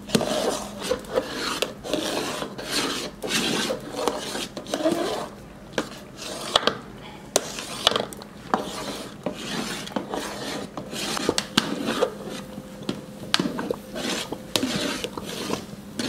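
Long metal spatula scraping and knocking against a large aluminium pot while thick strawberry-semolina halwa is stirred: irregular scraping strokes with sharp clicks between them.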